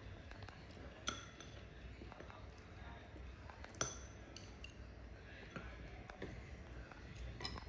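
Wooden chopsticks clinking against a white ceramic bowl while eating: two light clinks with a short ring, about a second in and near four seconds, and fainter taps between them.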